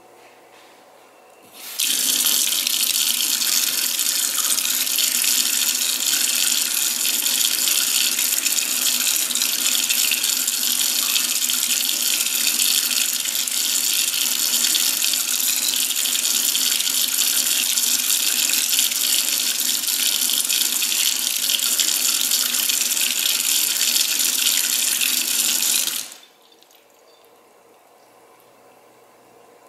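Moen Arbor MotionSense kitchen faucet, switched on by its motion sensor, running a steady stream of water into a stainless steel sink. The flow starts suddenly about two seconds in and shuts off abruptly near the end.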